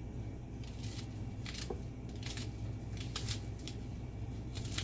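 A kitchen knife slicing through fresh scallion stalks held in the hand: a series of short, crisp cuts, roughly one a second, over a steady low hum.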